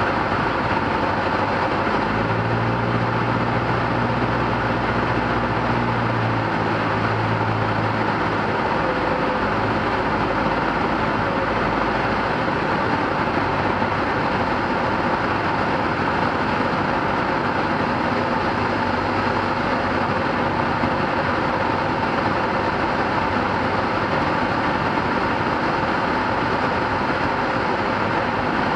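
Single-engine light aircraft's piston engine and propeller droning steadily, heard from inside the cockpit together with airflow noise, with a low hum that is stronger for the first several seconds.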